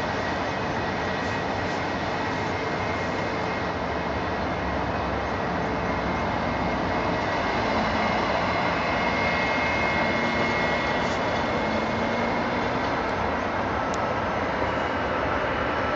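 Boeing 757-200's twin jet engines on final approach with the landing gear down: a steady roar with a high whine, growing a little louder about halfway through as the airliner nears.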